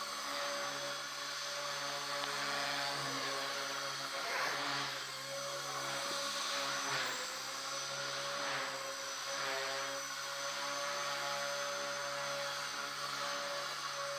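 Align T-Rex 250 electric RC helicopter in flight: its motor and rotor give a steady whine made of several tones, with a few swelling whooshes partway through as it manoeuvres.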